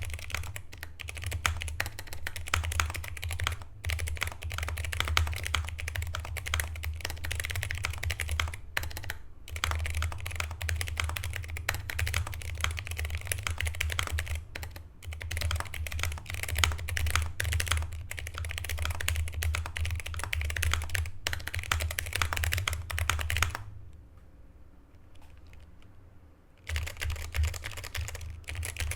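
Fast, continuous typing on a Pojun PJ02 mechanical keyboard with Outemu Brown tactile switches, PBT keycaps, a foam and tape mod and Vaseline-lubed stabilizers: a dense stream of keystroke clacks. Near the end the typing stops for about three seconds, then resumes.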